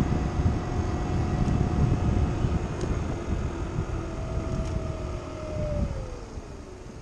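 Kymco Agility City 50 four-stroke scooter engine running under way, under heavy wind buffeting on the chest-mounted microphone; near the end the engine note falls and quietens as the throttle is eased off.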